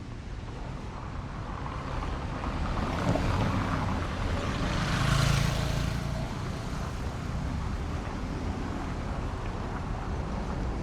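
City street traffic: a steady low engine rumble, with a vehicle passing close by, loudest about five seconds in, then fading.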